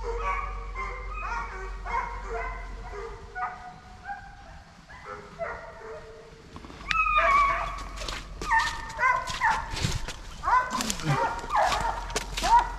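A pack of deer hounds baying on a running deer, several voices overlapping in long held bawls. About seven seconds in, louder, nearer bawls join, falling in pitch, with short crackles near the end.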